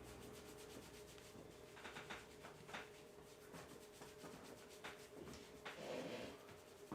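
Faint rubbing of hands over hair and scalp during a head massage, in short strokes: a quick run of them about two seconds in and more near the end, over a faint steady hum.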